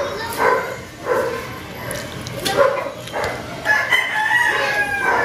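Chickens calling around the yard: several short clucks and calls, then a long drawn-out rooster crow near the end.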